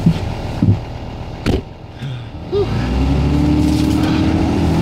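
Vehicle engine running while driving through snow, with a single knock about a second and a half in. From about three seconds in the engine note grows louder and holds steady.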